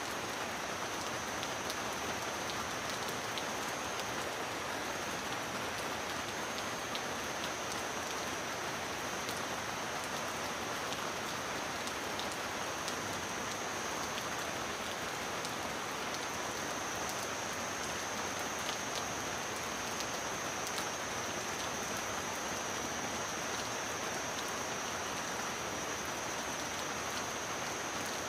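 Heavy rain falling steadily on a metal roof: an even hiss dotted with sharp drop ticks, with a thin high hiss running through it.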